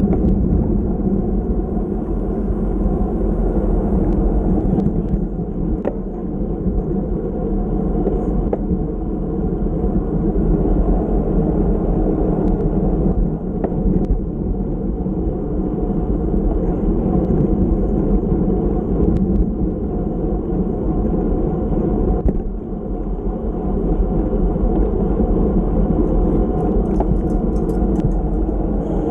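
Steady wind rush and road rumble on a bicycle-mounted action camera's microphone while riding at speed, with a few brief ticks.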